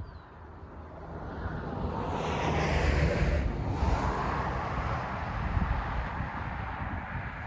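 Road and wind noise of a moving car, rising to a louder rush with strong hiss between about two and four seconds in, then easing off.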